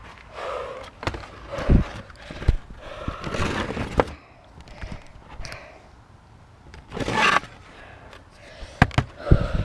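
Heavy, out-of-breath breathing after hard exertion, a breath every second or two, with several sharp knocks and rubbing from the handheld action camera being moved.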